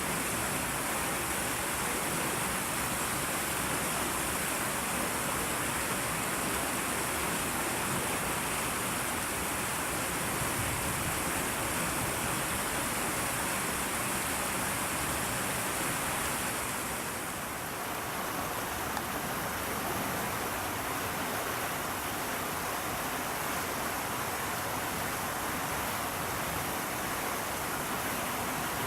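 Steady rushing background noise with no distinct events. A high hiss in it drops away about two-thirds of the way through.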